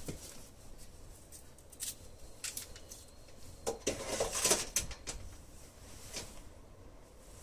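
Scattered light clicks from door-lock hardware being handled during a lock replacement, with a brief burst of rattling and scraping about four seconds in.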